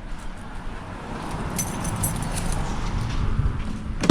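Ford 302 small-block V8 being started for the first time after a cam install and pushrod swap, its low rumble building, with a jingle of keys about two seconds in. A sharp thump near the end is the loudest moment.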